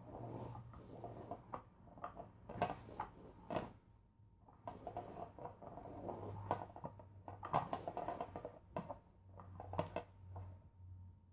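Undercover Mouse cat toy running: a low electric motor hum under irregular scratchy rustling and light taps as the wand sweeps beneath the nylon cover and the cat paws at the fabric.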